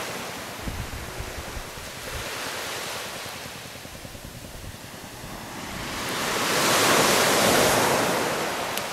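Small surf washing up a sand beach, a steady wash that swells louder about two-thirds of the way through as a wave runs in. Some wind rumble on the microphone underneath.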